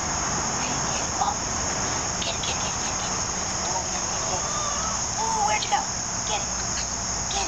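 A steady, high-pitched insect chorus, with a few faint short chirps over it in the second half.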